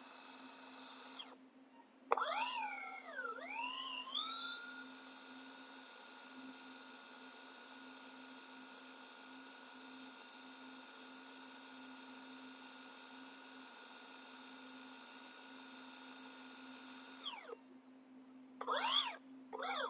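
Surgical power drill spinning a 2 mm drill bit into the ulna to make the hole for the encircling wire, a steady high whine. It winds down about a second in and restarts a second later, its pitch dipping and recovering for a couple of seconds. It then runs steadily until it winds down near the end, followed by two short whirs.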